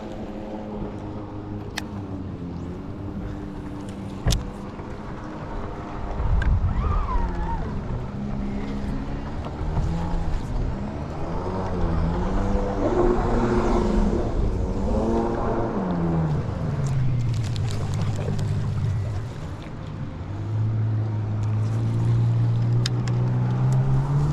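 A boat's outboard motor running, its pitch rising and falling in the middle, then settling into a steady, louder run near the end, with wind buffeting the microphone.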